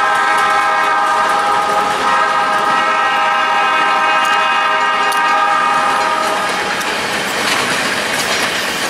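Air horn of Canadian Pacific's F-unit locomotives sounding a steady multi-note chord that stops about six and a half seconds in, over the wheels of passing passenger cars clicking on the rails.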